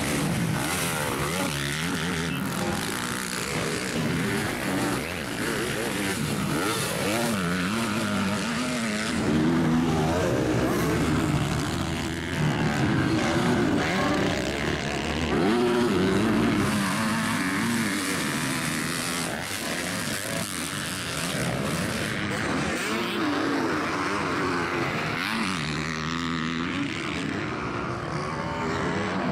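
Motocross bikes' engines revving up and down as they race, several at once, the pitch rising and falling with each throttle change. There are louder spells about ten seconds in and again around a quarter-minute in, as bikes come close.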